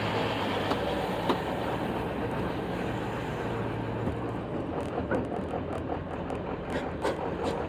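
7.3 diesel pickup towing a loaded trailer at low speed, a steady low drone, with light rattling and clanking from about halfway in.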